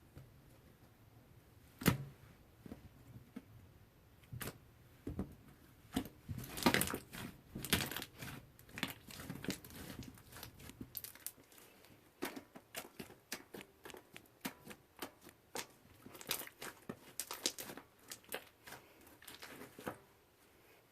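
Slime being worked, making irregular crackles and small bubble pops. A single sharp pop comes about two seconds in, and denser runs of crackling follow later.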